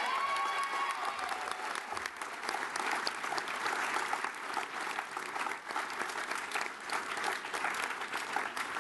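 Crowd applauding steadily, with a voice calling out over the clapping at the start.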